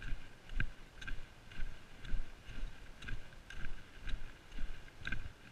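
A hiker's footsteps on a dirt forest track, a steady walking rhythm of about two steps a second, each step a soft thump with a light click.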